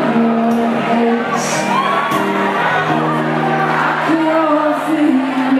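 Male singer singing live into a microphone over amplified band accompaniment, holding long notes that glide between pitches.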